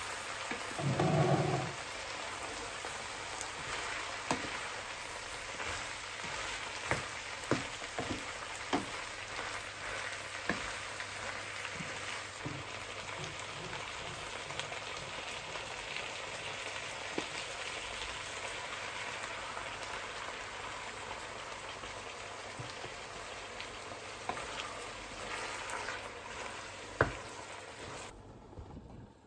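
Food sizzling in a frying pan: a steady hiss with scattered clicks and knocks, likely from a utensil. The sizzle cuts off suddenly near the end.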